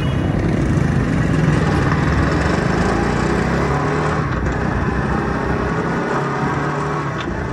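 Motorcycle engine running steadily while riding, with wind noise rushing over the microphone.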